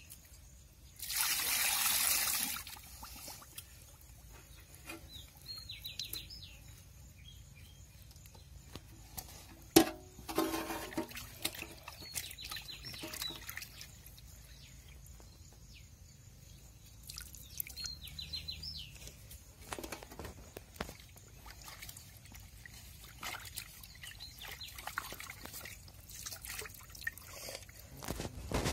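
Water splashing and trickling in a metal basin as whole fish are rubbed and turned by hand in turmeric water, with one louder rush of water about a second in. There is a single sharp knock near the middle, and quieter sloshing the rest of the time.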